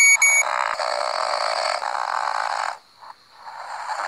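A person imitating snoring for the sleeping dolls: two long snores, the second starting about three seconds in, after a couple of short electronic beeps at the very start.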